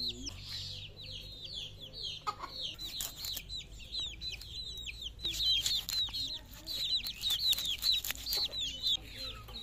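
Chicks peeping continuously in rapid, high, falling peeps. Underneath, sharp clicks and scrapes of a fish being scaled and cut against a bonti blade grow louder in the second half.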